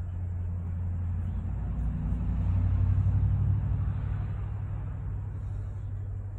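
Low rumble of a passing motor vehicle, swelling to its loudest about halfway through and then fading.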